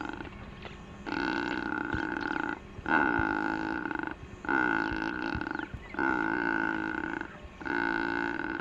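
Secretarybird calling: about five long, pitched calls, each a little over a second long, repeated at an even pace with short pauses between them.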